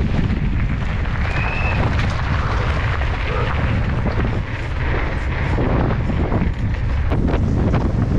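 Wind buffeting a helmet-mounted camera's microphone on a fast mountain-bike descent, with mountain-bike tyres running over gravel and the bike giving scattered rattles and knocks. A brief high squeak about a second and a half in.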